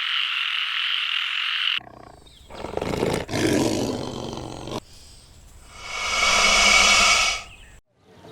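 A tiger roaring twice, the second roar the louder, after a steady high buzz that cuts off about two seconds in.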